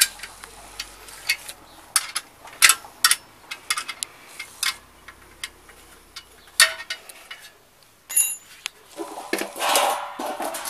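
Metal clicks and clinks of an open-end wrench and steel bolts as the LNB support arm of a DirecTV satellite dish is tightened by hand. From about nine seconds in, louder scraping and handling noise as the dish parts are moved.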